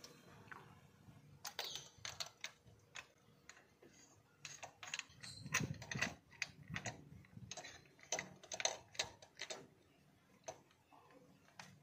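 Irregular sharp metal clicks and clinks from a spark plug socket on an extension being handled and fitted down into the spark plug well of a plastic valve cover.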